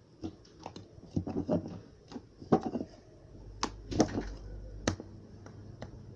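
Slime being handled in and out of its plastic container: a string of short, irregular clicks and squishes.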